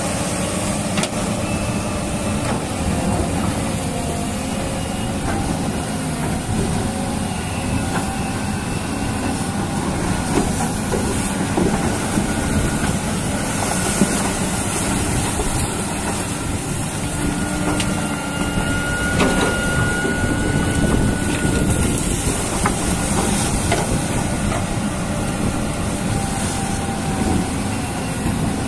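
Toy remote-control excavator's electric motors and plastic gears running steadily, a rattling whine whose pitch shifts as the bucket digs into soil.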